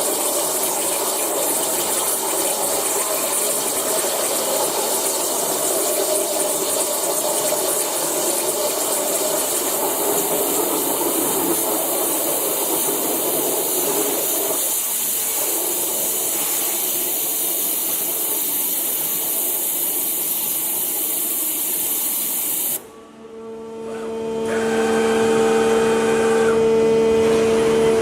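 High-pressure waterjet cutting, a steady loud hiss, which cuts off suddenly near the end. A steady machine hum with a few fixed tones then rises in its place.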